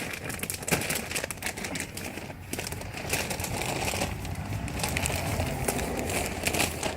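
Rustling and irregular light clicks and knocks of parts being handled while a solid rubber wheel and its axle bolt are fitted.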